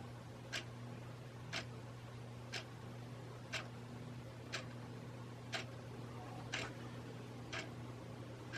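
Hunter Original ceiling fan's oil-bath motor running on high with a steady low hum, nice and quiet after fresh oiling. A sharp tick sounds evenly about once a second over the hum.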